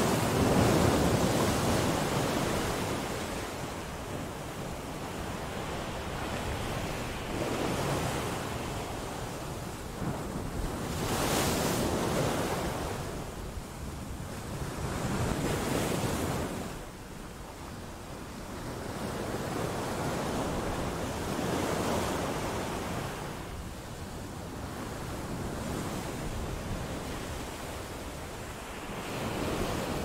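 Sea waves breaking and washing against coastal rocks, surging and falling back every few seconds, the loudest surge about a second in.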